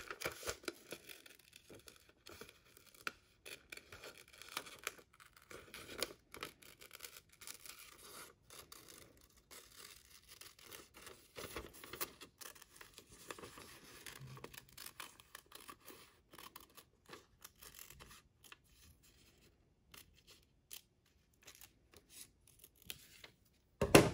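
Scissors snipping through folded newspaper in a run of short cuts, with paper rustling. The cutting thins out for a few seconds, then a louder knock and rustle comes near the end.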